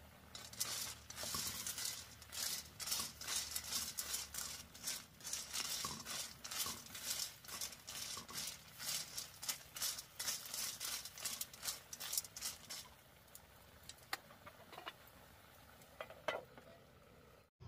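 Quick, uneven clattering and scraping strokes of a utensil stirring in a pan, about two or three a second; they stop about thirteen seconds in, leaving a few scattered knocks.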